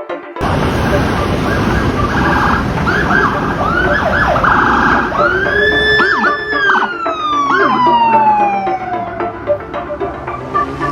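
Car-mounted electronic siren making the "tot tot wuk wuk" sound: quick "wuk wuk" whoops and two buzzing horn blasts in the first half, then one long wail that rises about halfway through and slowly falls away, over road traffic noise.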